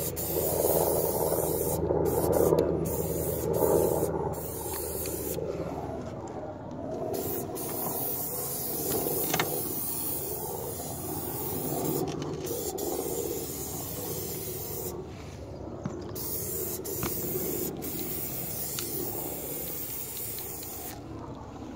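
Aerosol spray can of asphalt primer spraying in long runs with several brief pauses.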